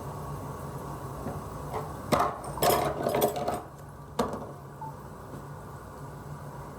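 A quick run of hard objects clattering and knocking, then one sharp knock a second or so later, over a steady low hum.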